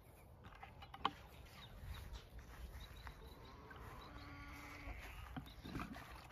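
A drawn-out animal call lasting about a second, starting about four seconds in. A sharp click comes about a second in.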